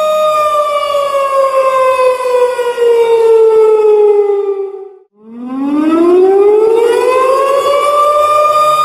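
Air raid siren wailing. Its pitch falls slowly for about five seconds, almost dies away for a moment, then rises again over about three seconds to a steady high note near the end.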